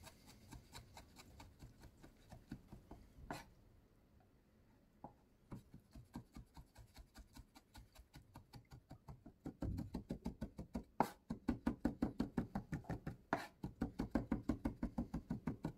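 Chef's knife rapidly mincing peeled tomato on a wooden cutting board, a quick even run of about five strikes a second. The chopping is quiet at first with a brief lull, then louder through the second half.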